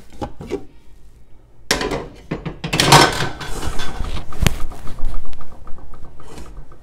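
Cookware clattering: a glass pot lid is taken off and a metal ladle knocks and scrapes against the pots. A few light clicks come first, then a loud stretch of clattering from about two seconds in, with one sharp knock about four and a half seconds in.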